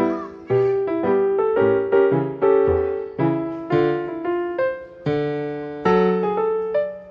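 Background piano music: a gentle melody of single struck notes, about two a second, each ringing and fading before the next.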